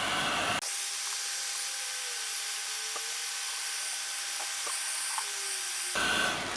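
Corded heat gun running: an even hiss of blown air with a steady whine, and a few faint ticks. The sound changes abruptly about half a second in and again near the end.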